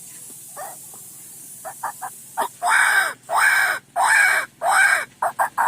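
A man imitating a bird's call with his voice: a few short clicks, then from about halfway in a run of loud, harsh calls, each about half a second long, repeated back to back.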